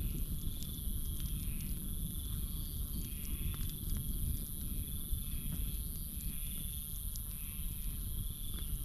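Campfire crackling with scattered sharp pops over a low rumble, against a steady high trill of night insects and a short chirping call that repeats about once a second.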